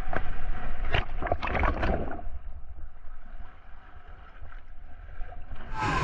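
Water splashing hard and close as a swimmer in a life jacket thrashes in the river, in quick splashes over the first two seconds and then quieter water noise. Near the end, a steady rush of whitewater rapids.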